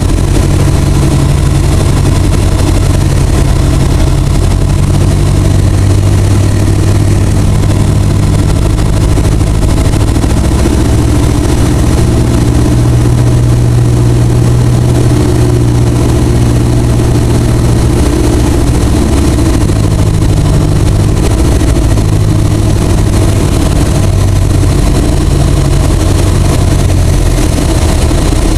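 Van's RV-7A's piston engine and propeller running steadily, heard inside the cockpit on approach to landing. The low engine note shifts slightly a couple of times.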